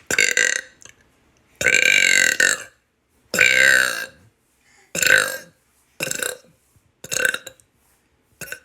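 A person burping again and again: about seven belches in a row, the second and third the longest at about a second each and the rest short.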